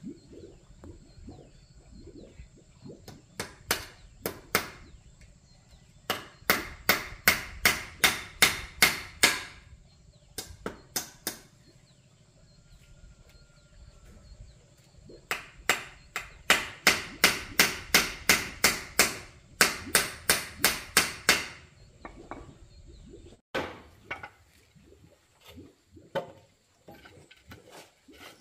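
Hammer striking a wooden railing frame in quick runs of blows, about three to four a second, with pauses between the runs; a few single knocks near the end.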